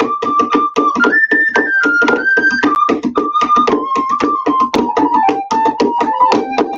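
Instrumental music: a fast, even pulse of repeated notes under a melody that rises about a second in and then steps gradually down, the introduction before the singing starts.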